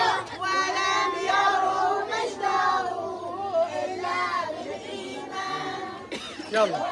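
A crowd of young children and women singing together, a Palm Sunday hymn.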